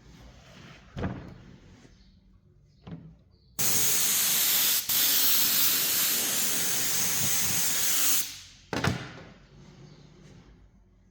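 A loud, steady spraying hiss lasting about four and a half seconds, with a brief break about a second in, set between two sharp knocks.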